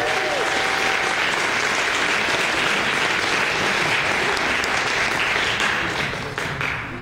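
A crowd applauding steadily, then dying away near the end.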